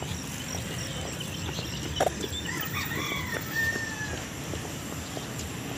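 A rooster crowing once, a drawn-out call that rises and then holds about halfway through, over a steady low rumble. A single sharp knock comes about two seconds in.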